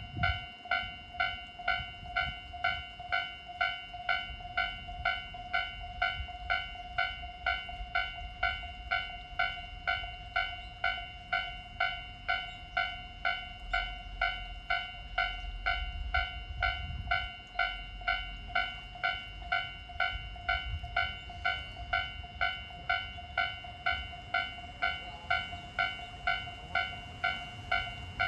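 Japanese railway level-crossing alarm ringing, about two strikes a second, its electronic bell distorted and off its usual pitch. A low rumble swells underneath around the middle.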